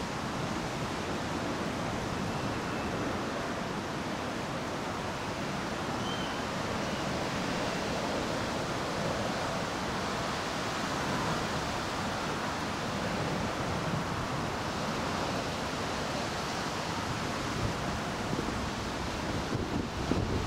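Steady wind rushing over the microphone, an even hiss and rumble with no clear strikes in it.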